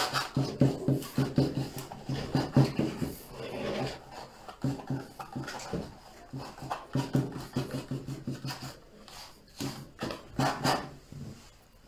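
Palette knife scraping and dabbing thick oil paint onto a canvas in a quick run of short strokes, coming more sparsely after the first few seconds.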